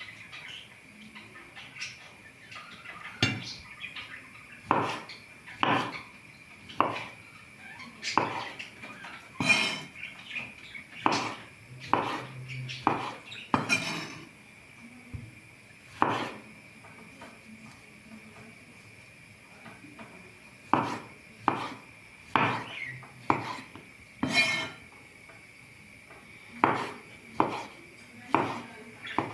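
Kitchenware clattering: irregular knocks and clinks of utensils against dishes and pans, about twenty over half a minute, over a faint steady high-pitched hum.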